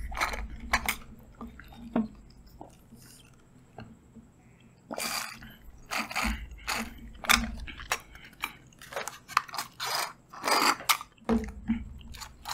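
Close-miked sipping and slurping of mango drink through straws from small paper drink cartons, with crackles as the cartons are squeezed: irregular wet sucks and clicks, thinner for a couple of seconds after the start and then coming thick and fast.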